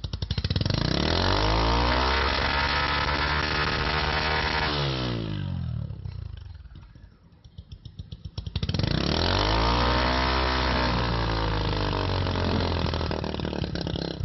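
Honda TMX motorcycle's single-cylinder four-stroke engine on its stock exhaust, revved twice from idle. Each rev climbs quickly, is held high for about five seconds and drops back. A few seconds of idle lie between the two revs.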